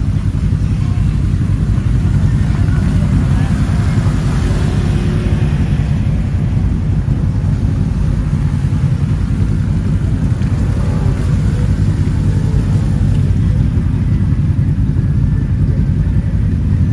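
A motor vehicle's engine running steadily, a deep continuous rumble.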